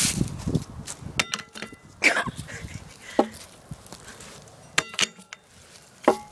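Repeated metal clangs as something heavy is slammed down on an air horn's metal canister resting on wood: about half a dozen separate strikes, several ringing briefly after the hit.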